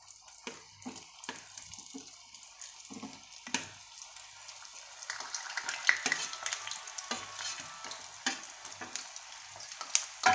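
Gulab jamun dough balls frying in hot oil in a black wok as more are pushed in off a steel plate with a slotted steel spoon: a frying sizzle that grows louder about halfway through, with scattered light knocks of the spoon and plate.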